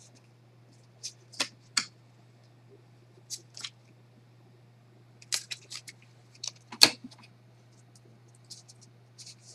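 Pokémon trading cards being handled and sorted, giving short scraping clicks in small clusters, with one louder tap about two-thirds of the way through.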